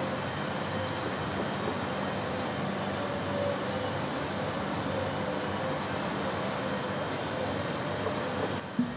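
Steady outdoor background noise, even and unbroken, of the kind distant road traffic makes, with no music.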